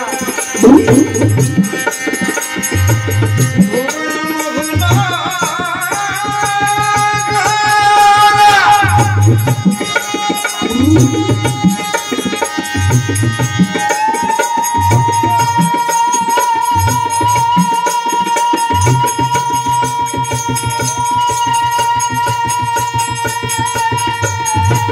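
Bengali devotional song: a voice singing over a harmonium, with a hand drum beating a steady rhythm underneath. About halfway through, a long note is held to the end.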